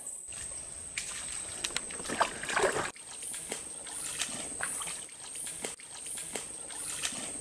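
Rainforest insects keep up a steady high-pitched whine, with a faint chirp repeating about every two-thirds of a second. Scattered clicks and rustles come through, loudest about two to three seconds in.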